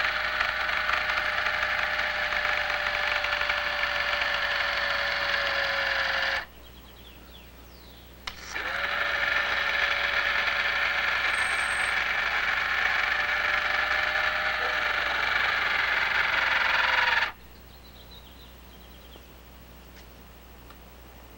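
Ducted fan of a home-built VTOL drone running steadily with a high whine and rushing air. It stops abruptly about six seconds in, spools back up about two seconds later, and cuts off again about four seconds before the end.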